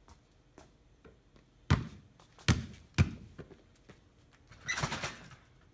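A basketball bouncing hard three times on stone patio paving, then a short rattling clatter near the end from the dunk attempt at the hoop.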